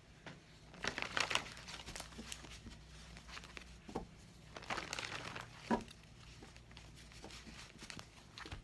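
Tarot cards shuffled and handled by hand: irregular papery rustling with a few sharper card snaps.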